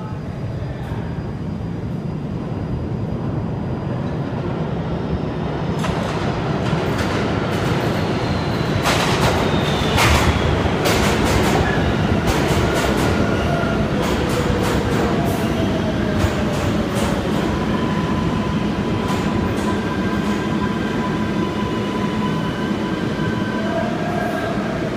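An R142A subway train pulls into the station: a rumble that swells as it arrives, a run of sharp clacks from the wheels over rail joints, and a high electric whine that falls in pitch as the train brakes. Steadier whining tones follow as it slows to a stop.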